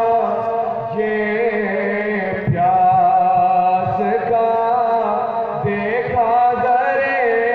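Devotional group singing by male voices, with long ornamented held notes over a steady harmonium drone and a hand drum beating a quick rhythm.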